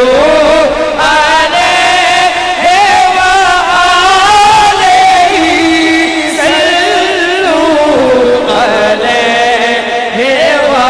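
A man chanting a naat into a microphone in long, held, wavering melodic phrases, sliding between notes.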